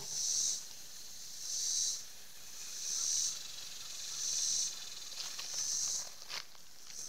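Insects calling in a pulsing chorus: a high buzz that swells and fades about every second and a quarter, six times over.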